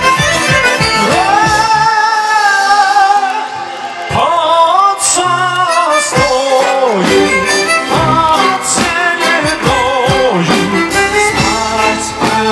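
Uzbek music played loud: a singer and violin carry long, wavering held notes over a steady drum beat.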